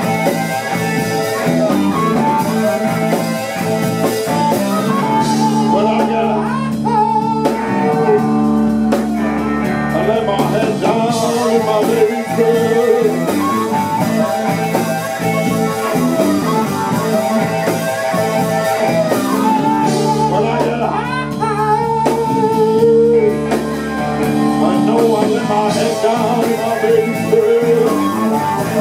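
Live blues band playing an instrumental stretch: a harmonica blown into a microphone plays long, bending notes over electric guitar and drums.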